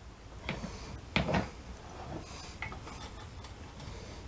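Light metallic clicks and taps of a loose bolt and washers being picked up and fed into the motorcycle's engine mounting, a few scattered clinks with the loudest about a second in.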